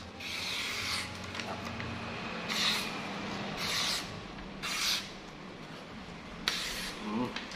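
A D2-steel Bowie knife slicing through sheets of printer paper as a sharpness test: about five short slicing swishes, with the paper rustling in the hand between cuts.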